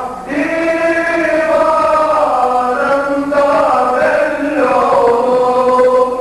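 Male choir singing an ilahi, a Turkish Sufi hymn, in long held notes that slide slowly from pitch to pitch, with a brief breath just after the start.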